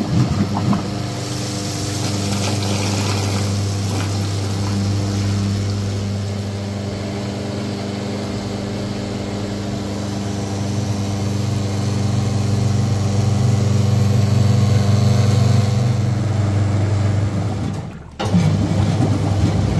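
Henny Penny F5 fryer's filter pump running with a steady hum as it pumps filtered cooking oil back into the fry vat, the oil churning and bubbling as the vat refills. The sound drops out briefly near the end.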